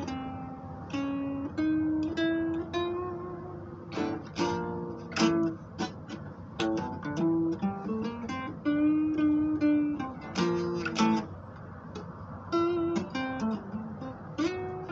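Acoustic guitar played by hand: sharp strummed chords between held, ringing notes, some of which slide up in pitch.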